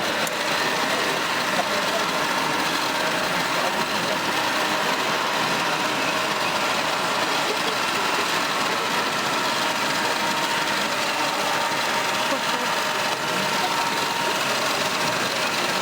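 Radio-controlled model construction machines running: a steady mechanical whine with several faint steady tones, and voices talking in the background.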